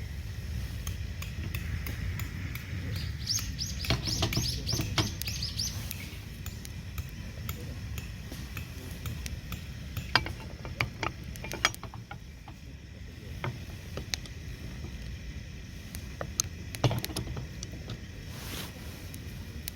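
A small bird calling a quick series of high, falling chirps a few seconds in, over a steady low rumble, with scattered sharp clicks and a few knocks.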